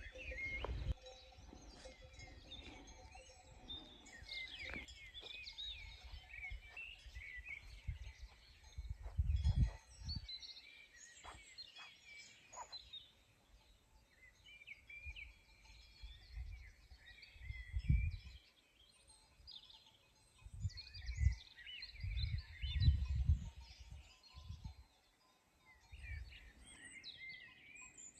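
Small birds chirping and calling throughout, many short high chirps, with several brief low rumbles on the microphone in the second half.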